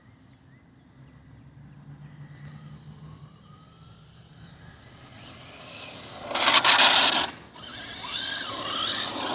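Electric RC drag truck (Traxxas Slash 2WD) making a run. After several quiet seconds, a loud burst of motor whine and tyre noise comes about six seconds in. A lower stretch with whining pitch glides follows, then another loud burst near the end.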